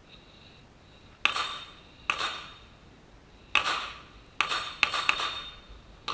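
Gunshots at a shooting range: seven sharp reports at irregular spacing, starting about a second in, each with a short ringing tail.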